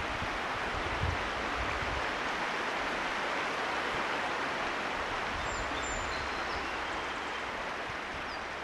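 Steady rush of flowing stream water, with a few faint high chirps about halfway through.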